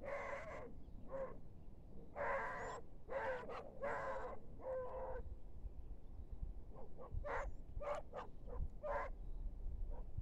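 An animal calling over and over: about six calls of under a second each in the first five seconds, then a quicker string of shorter calls, over a steady low rumble.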